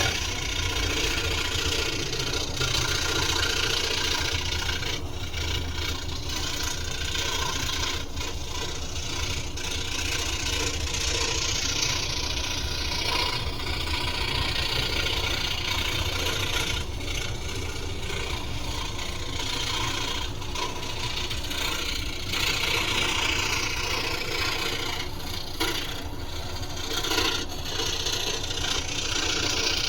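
Scroll saw running steadily, its blade cutting through a thin wooden piece.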